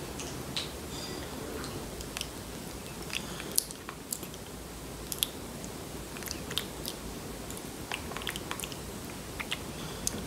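Baby macaque eating rice porridge off a plastic spoon: scattered small, irregular clicks and smacks of its mouth on the spoon.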